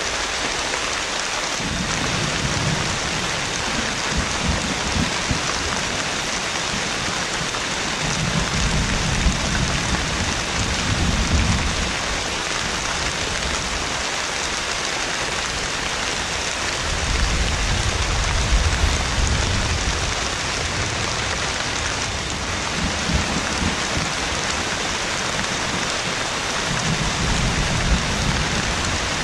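Heavy rain falling steadily, with low thunder rumbling five times, each rumble lasting a few seconds.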